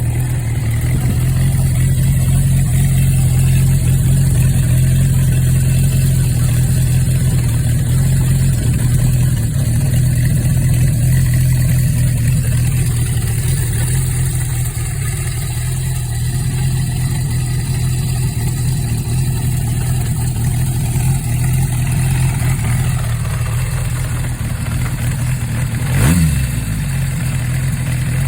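Honda CB550 air-cooled inline-four idling steadily through a four-into-one collector exhaust with a Moriwaki straight silencer, with one quick blip of the throttle about 26 seconds in.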